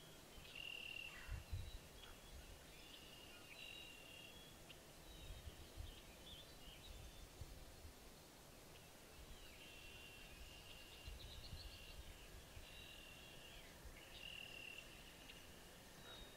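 Quiet outdoor ambience with faint, repeated high-pitched peeping calls, and a few brief low rumbles.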